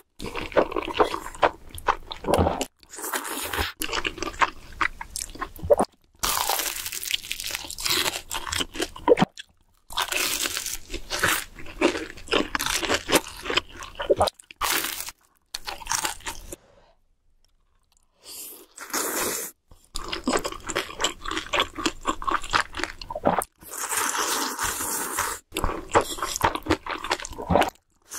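Close-miked eating: crunching bites of fried dumplings and chewing, in loud bursts with brief breaks between them. There is one longer, nearly silent pause about two-thirds of the way through.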